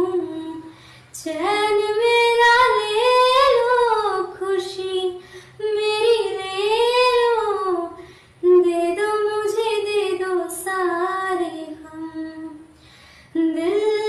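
A woman singing a slow, gliding romantic melody in long phrases broken by brief pauses, with little or no accompaniment under the voice.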